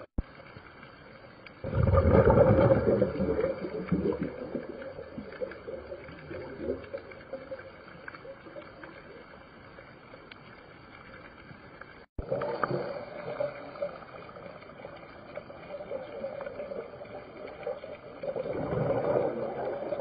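Underwater sound from a scuba diver's camera: the diver's exhaled bubbles gurgle loudly about two seconds in and again near the end, over a steady underwater hum.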